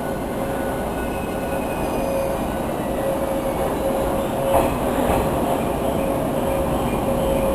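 485-series electric train running slowly into a station platform, wheels rumbling on the rails, with a steady high squeal throughout and a single knock about four and a half seconds in.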